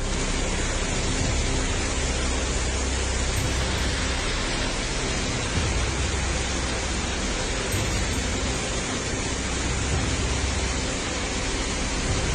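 Steady, even rush of water noise from heavy rain and flooding, unchanging throughout, with a low rumble underneath.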